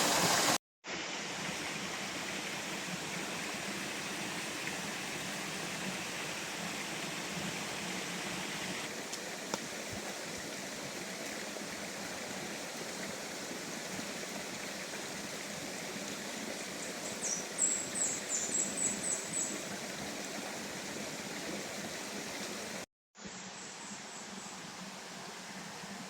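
Steady rush of water from a stream or waterfall. A quick run of high chirps comes in briefly past the middle, and the sound drops out for a moment twice.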